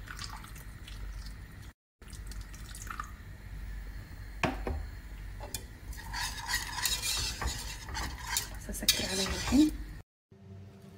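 A utensil stirring and scraping a milk-and-cornstarch pudding mixture in a pot over low heat, with occasional knocks against the pot. The scraping gets busier about six seconds in.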